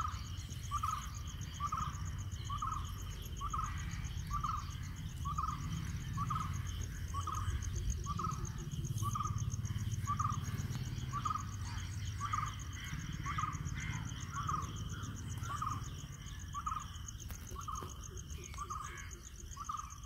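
Outdoor wildlife chorus: a short call repeated evenly about once a second, over a continuous high-pitched insect trill, with a low rumble underneath.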